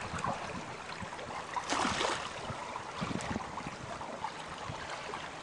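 Water splashing and gurgling irregularly along the hull of a Pearson 23 sailboat under sail, with a louder splash about two seconds in.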